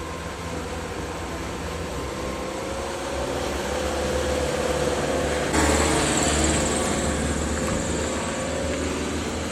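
A motor engine running under a steady rushing noise, with a low hum and a faint tone that rises slightly. It grows louder and brighter about halfway through.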